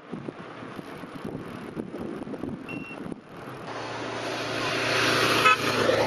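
Wind buffeting the microphone for about three seconds, with a brief high beep near the end of that stretch; then a passing motor vehicle on the road swells up and fades away.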